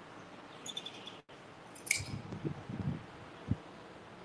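Hand blade shears snipping through a sheep's fleece: a few sharp metallic clicks as the blades close, about a second in and again around two seconds in. Low thumps and rustling from handling the sheep follow in the second half.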